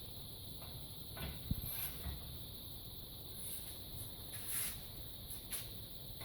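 Faint, scattered knocks and clicks as a homemade spring compressor and its leverage pole are handled and fitted in a vise, over a steady low hiss.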